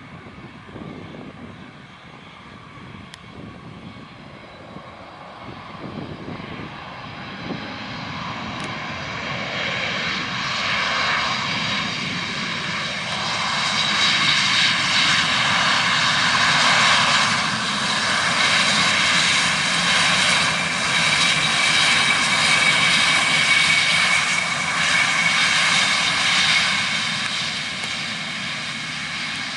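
Engines of a Jetstar Airbus A320-family airliner at takeoff power as it rolls down the runway: a steady jet roar with a high whine that builds over the first half and stays loud, easing slightly near the end.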